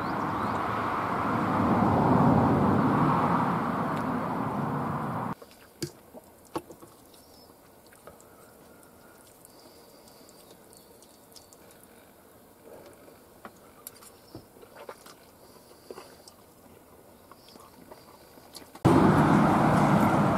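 A road vehicle going past, its noise swelling to a peak about two seconds in. After an abrupt drop, it is quiet apart from small clicks of a metal fork against a plate while eating. Near the end a loud, steady rush of outdoor noise starts suddenly.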